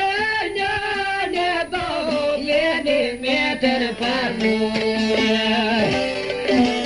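Albanian folk song: a man singing over plucked long-necked lutes (çifteli and sharki), the voice gliding and ornamenting in the first half, with the lutes carrying on in the second half.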